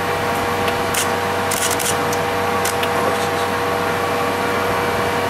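Steady machinery hum with rushing air, holding several fixed tones, with a few light clicks about one to two seconds in.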